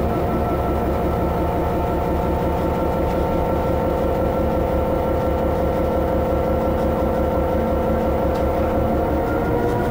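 Class 66 diesel-electric locomotive's EMD two-stroke V12 engine running steadily while the freight train moves along the line, heard from inside the cab as a constant drone with a low rumble beneath it.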